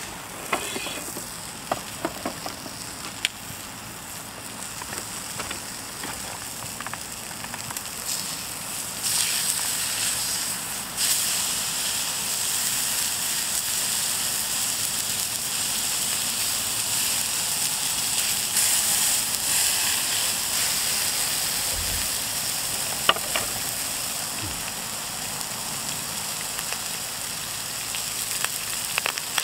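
Lamb ribs sizzling in a pan over a gas burner: a steady hiss with small pops that grows louder about nine seconds in. A few light clicks come in the first seconds.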